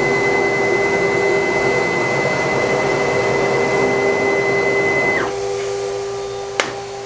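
Desktop CNC router running: a steady machine whine over a low hum, with a high steady tone that falls away and stops about five seconds in, leaving the hum and a quieter noise.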